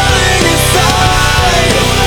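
Loud, heavy rock music with distorted guitars and a steady beat.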